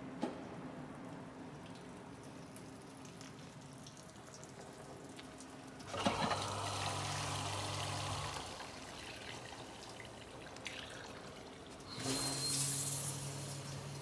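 Hobart AMXXS31 hood-type commercial dishwasher running its cycle: about six seconds in a pump starts humming with water rushing, stops after about two and a half seconds, then starts again about twelve seconds in with a splashing rush.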